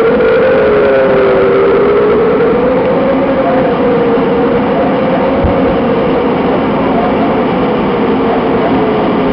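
Warning siren during a rocket attack, sounding a steady wail whose pitch slowly wavers up and down. There is a single brief low thump about halfway through.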